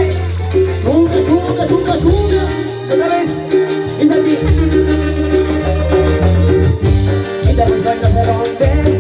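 Live Latin dance band playing an instrumental passage between sung verses: a steady bass line and a wandering melody over even, fast shaker-like percussion.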